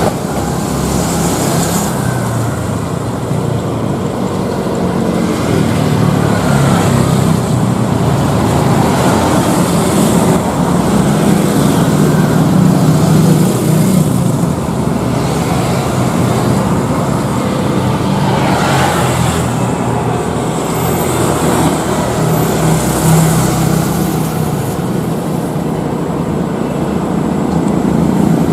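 Jet airliner engines running loudly and steadily, a continuous low hum under a broad rushing noise that swells and eases slightly.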